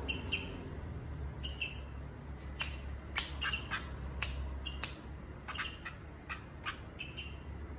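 Sooty-headed bulbul (kutilang) calling: a run of short chirps and sharp clipped call notes, repeated irregularly every half second or so.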